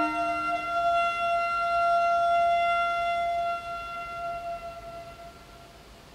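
Solo cello: a lower bowed note stops about half a second in, leaving one high note held steadily, which fades away over the last couple of seconds as the closing note of the piece.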